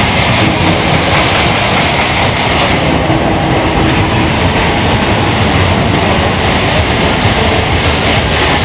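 Loud, steady rumbling din of a fairground thrill ride running.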